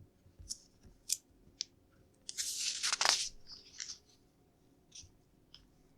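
LEGO plastic pieces being handled: a few light, separate clicks of plastic parts, with a louder second of rustling and crunching about two and a half seconds in.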